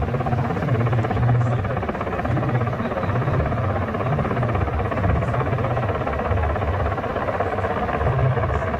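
Mil Mi-17 helicopter running loud and steady, its main rotor giving a low, pulsing beat over the continuous noise of its twin turboshaft engines.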